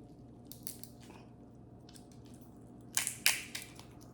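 A person chewing food with wet mouth sounds close to the microphone, in a few short bursts, the loudest about three seconds in.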